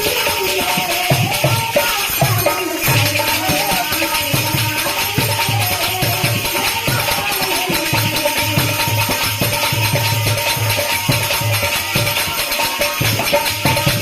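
Devotional bhajan music. A drum beats a steady repeating rhythm under jingling hand percussion and a sustained, wavering melody line.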